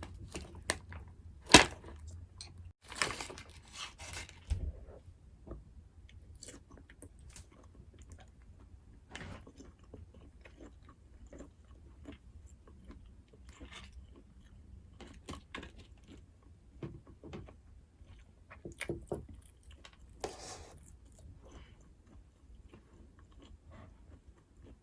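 Close-miked eating sounds: a person biting and chewing in irregular small clicks, with a sharp click about a second and a half in and short, louder, noisy stretches around three seconds and again around twenty seconds.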